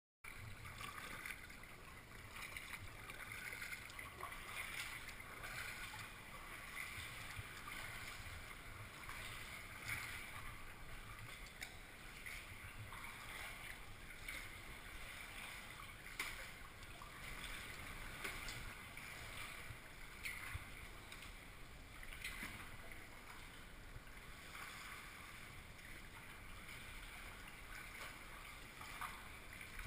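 Kayak paddle strokes in calm water: the blades dipping and water splashing and trickling off them over a steady watery hiss, with a few sharper ticks now and then.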